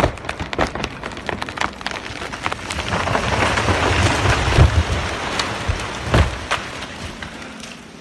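A large conifer falling after being felled: wood cracking and splintering in a run of sharp snaps, then a swelling crashing rush as the tree comes down, a heavy thud about four and a half seconds in and a second thump near six seconds, after which the crashing dies away.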